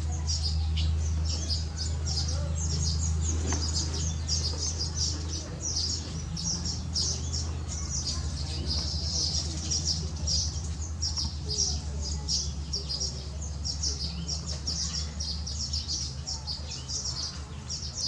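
Weaver birds chattering: a dense, continuous stream of quick, high chirps, several birds calling over one another, with a steady low hum underneath.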